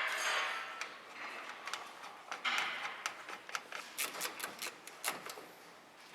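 Irregular light clicks and taps with short stretches of rustling noise, like parts and tools being handled; the clicks come thickest about four seconds in.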